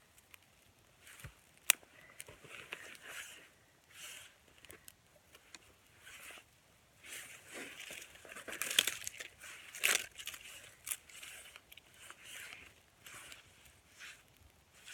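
Dry grass and birch bark rustling and crinkling in short irregular bursts as they are handled to lay a campfire, with a sharp snap about two seconds in and a louder flurry of crinkling in the middle.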